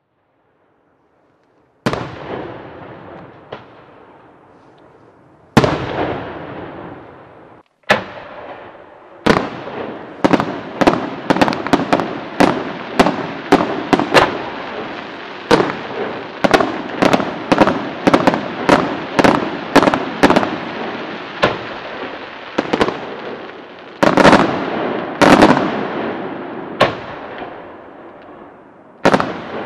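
Aerial firework shells bursting, each sharp bang followed by a long echoing tail. After about two seconds of silence, a few single bangs come several seconds apart. Then a rapid run of many bangs in quick succession follows, thinning to a few spaced bangs near the end.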